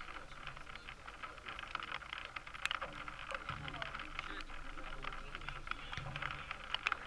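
Distant voices of football players and spectators across an open pitch, over a steady outdoor background hiss dotted with small crackles.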